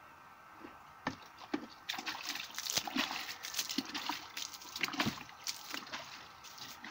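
Water sloshing in a plastic bucket and splashing onto loose soil as it is scooped and thrown by hand, in irregular splashes starting about a second in. The freshly broadcast seed is being watered.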